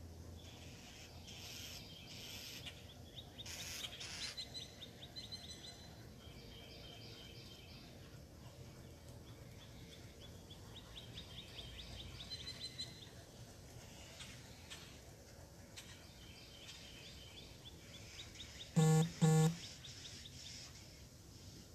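Outdoor birdsong, with several rapid high chirping trills. About three-quarters of the way through comes a loud, short double honk: two quick nasal notes, one right after the other.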